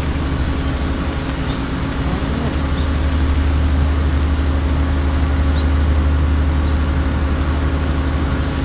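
Camp generator running with a steady low hum.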